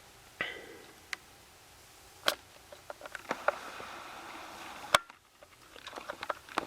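Scattered light clicks and taps from laptop and hard-drive parts being handled and fitted, with a sharper click about two seconds in and another about five seconds in.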